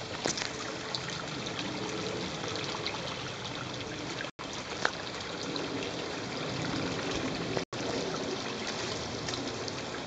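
Shallow creek trickling steadily over stones. The sound cuts out for an instant twice.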